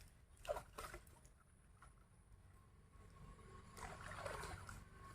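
Faint splashing and sloshing of pond water as a fishing net is hauled in. There are a couple of short splashes about half a second in and another burst of splashing about four seconds in.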